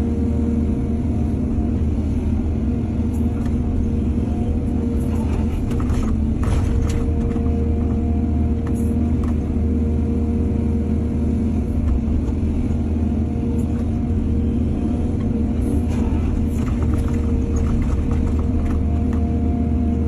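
Heavy diesel engine of an excavator running steadily with a constant hum. Short bouts of clattering and knocking come a few seconds in and again near the end.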